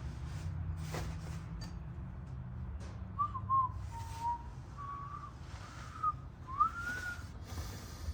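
A person whistling a short wandering tune of several gliding notes, starting about three seconds in, with a few sharp clicks and light knocks around it.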